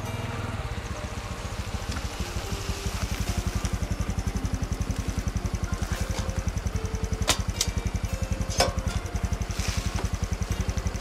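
Honda CT125 Hunter Cub's single-cylinder four-stroke engine running at low speed as the bike rolls up and stops, then idling with a fast, even beat. Two sharp clicks come a little past halfway, about a second apart.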